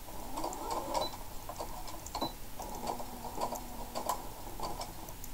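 Electric household sewing machine stitching fabric in short runs, its motor rising in pitch as it speeds up, with the needle mechanism clicking.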